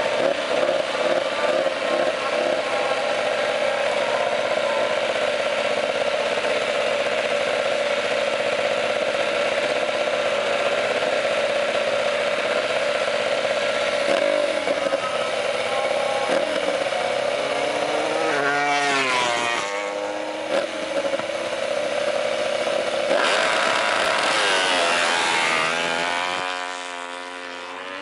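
Ducati Desmosedici MotoGP bike's V4 engine running at a steady idle. About two-thirds of the way through it is revved and let fall back, then again near the end, before the sound drops away.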